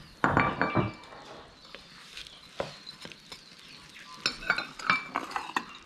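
Dishes clinking and scraping as food is scooped from a plastic bowl onto plates: a clatter shortly after the start, scattered clicks, then a run of ringing clinks between about four and five and a half seconds.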